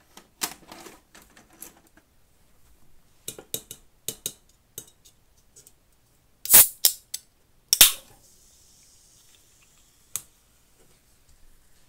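A VHS cassette is pushed into a VCR, with clicks and clunks from the tape and the loading mechanism, then louder knocks as a drink can is handled. About eight seconds in comes a sharp crack followed by a couple of seconds of fizzing hiss: a soda can being opened.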